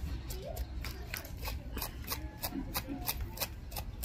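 Scales being scraped off a whole cro cro (croaker) fish: quick, uneven rasping strokes, about four a second. This is a second scaling pass to get off the scales left after the first.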